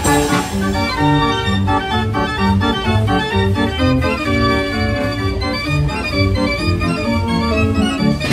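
Fairground organ playing a tune, with the melody notes moving quickly over a regular bass.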